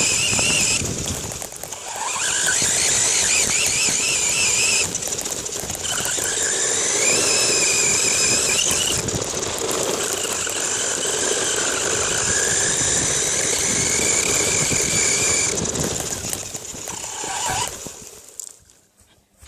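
Radio-controlled car's motor whining at speed, its high pitch rising and falling as the throttle changes, with a few short breaks. It winds down and stops shortly before the end.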